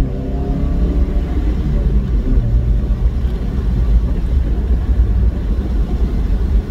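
Toyota MR2 Spyder's 1.8-litre four-cylinder engine, breathing through a short ram velocity-stack intake, running while the open-top car drives along. The engine's pitched note is clear at the start, then sinks under heavy wind rush on the microphone and road rumble within the first second.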